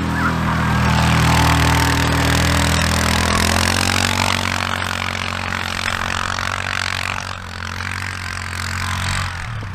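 Four-wheeler (ATV) engine running at steady throttle as it pulls past close by, then fading as it drives away across the field.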